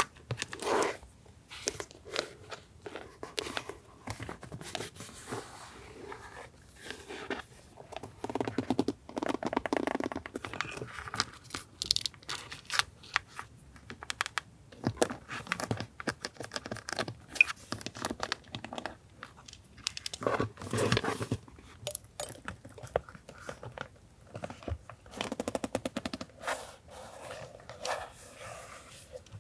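Hands handling paper and a handmade pocket binder, making irregular rustling and crinkling with many scattered clicks and taps.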